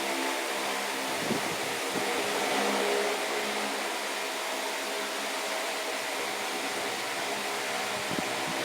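Tron AT wall fan running steadily: an even rush of air with a steady motor hum.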